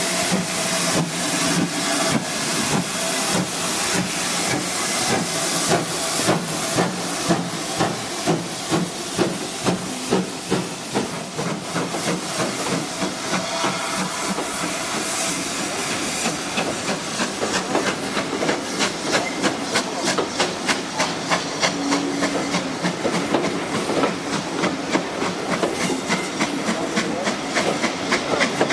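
Steam locomotive pulling away under steam: sharp, regular exhaust chuffs over a steady hiss of steam, the beats quickening from about two a second to about three or four a second as it gathers speed.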